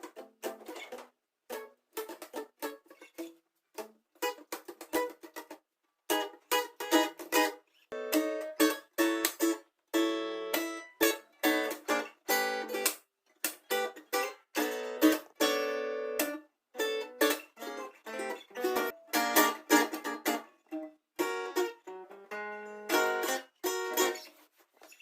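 Guitar picked in short melodic phrases of single notes, with brief pauses between the phrases; the notes sit fairly high, with nothing deep underneath.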